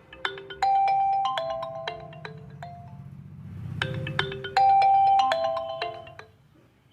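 Phone ringtone: a short marimba-like melody of bright struck notes, played through and then repeated once, fading near the end.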